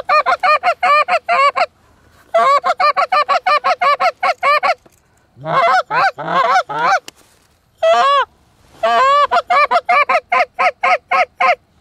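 A handheld goose call blown close by in fast, evenly spaced honks and clucks, about six notes a second. It comes in five runs with short breaks between them, calling to Canada geese flying in.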